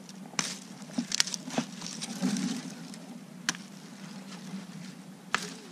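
Twigs and limbs cracking and snapping as they are trimmed off a cut branch: about half a dozen sharp, irregular cracks, with a brief rustle of brush about two seconds in.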